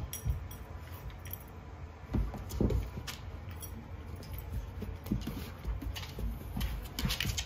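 Two Portuguese water dogs, an adult and a young puppy, play-wrestling: scuffling and thumps of paws and bodies on a rug and hardwood floor, with scattered clicks and light jingling. The loudest thumps come a little after two seconds in and near the end.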